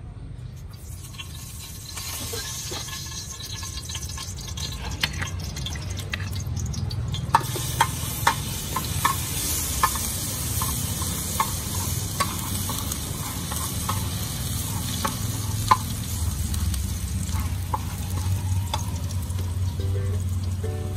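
Minced garlic sizzling in hot oil in a frying pan, the sizzle growing louder over the first few seconds. A metal spatula stirs it, clicking and scraping against the pan.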